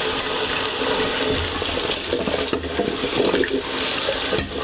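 Tap water running steadily into a stainless steel stock pot in a sink, filling it, as chopped vegetables are tipped in from a bowl and splash into the water.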